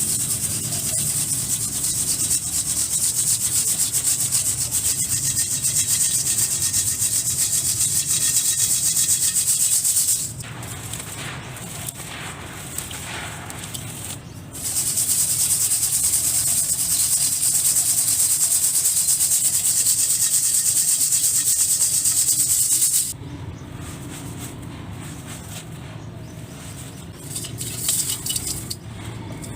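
Dry, crumbly material being rubbed and crumbled, a dense gritty hiss. It runs steadily for about ten seconds, drops to a quieter scratching for a few seconds, then runs steadily again before turning quieter near the end.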